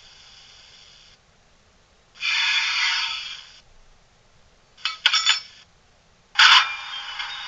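Bachmann class 45 'Peak' model's DCC sound decoder playing locomotive effects through its small speaker. A faint steady hiss cuts off about a second in, then comes a loud hiss lasting about a second and a half, a cluster of short bursts, and another loud hiss that starts sharply near the end.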